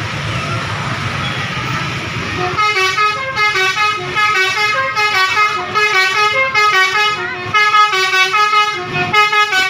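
Basuri multi-tone "telolet" bus air horn playing a quick tune of stepped notes. It starts about two and a half seconds in, after a low rumble of traffic.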